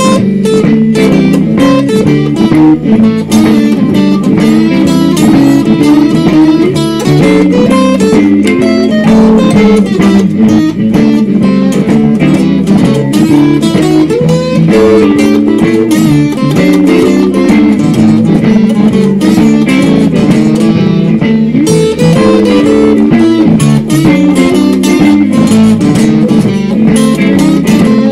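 Electric guitar playing a blues shuffle, with picked single-note licks and chords that run on without a break. The recording is loud and a little distorted.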